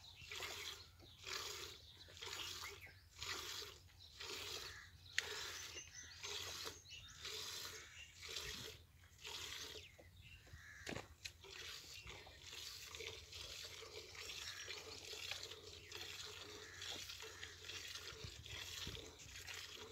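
Calf suckling at a cow's udder: wet sucking and slurping in a steady rhythm, a little more than one pull a second, running together more in the second half. A single sharp click about five seconds in.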